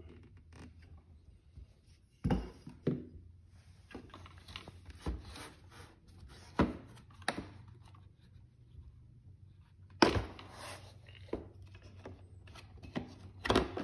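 Scattered clicks and knocks of small hand tools and parts being handled and set down on a bench mat, with the loudest knock about ten seconds in.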